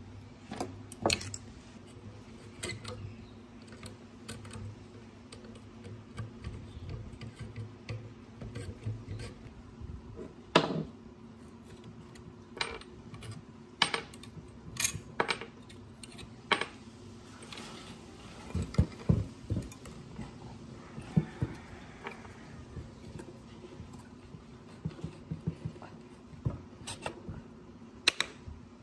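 Scattered sharp clicks and clinks of metal parts and tools being handled on a workbench while a rusty electric motor is taken apart, the loudest knock about ten seconds in and a busier run of clinks a little past the middle, over a steady low hum.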